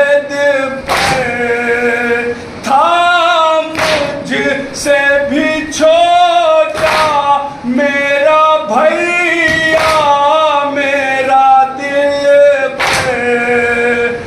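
Male voices chanting an Urdu nouha, a Shia lament, unaccompanied and in a melodic, drawn-out style. A sharp slap of chest-beating (matam) cuts in about every three seconds.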